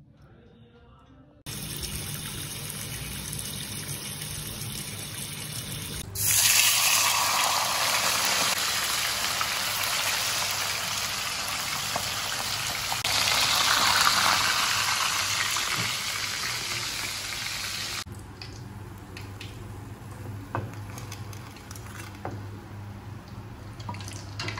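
A whole jenahak (golden snapper) deep-frying in hot oil in a wok: a loud, steady sizzle that starts suddenly about a quarter of the way in, swells again a little past the middle, and cuts off abruptly about three-quarters through. Before it there is a quieter steady hiss; after it, faint scattered clicks and knocks.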